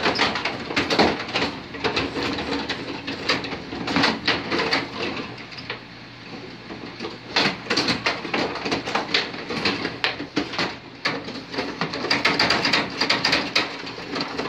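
Carrom Super Stick dome hockey table in play: control rods pushed and spun, plastic players and puck rattling and clacking in a dense, uneven run of clicks and knocks, busiest in the last few seconds.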